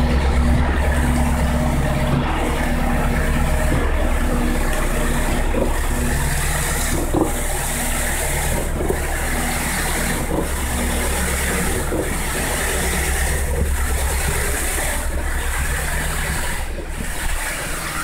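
Concrete pump running steadily: a low engine drone that pulses about every one and a half seconds as the pump strokes, pushing concrete through the hose line.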